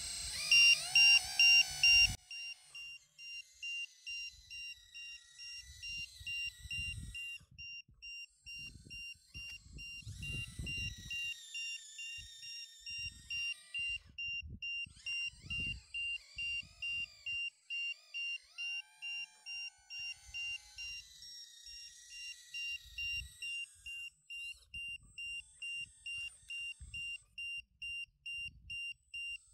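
Hydraulic RC excavator at work: its motors whine, rising and falling in pitch as the boom and bucket move, with short low rumbles of digging. Through it a steady high electronic beep repeats about twice a second. The first two seconds are louder and busier before dropping back.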